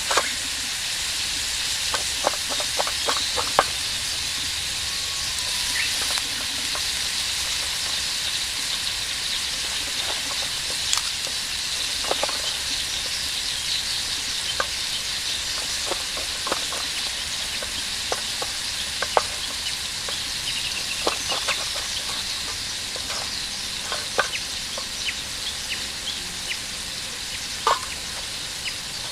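Food sizzling steadily in a Turk iron frying pan over a campfire, with scattered sharp pops and clicks throughout.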